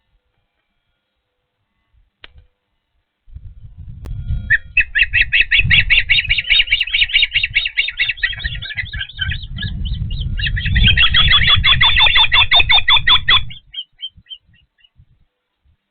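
Osprey giving a rapid run of high, chirping whistles, several a second, with a low rumble underneath. It starts a few seconds in, lasts about ten seconds and then trails off into a few fainter chirps.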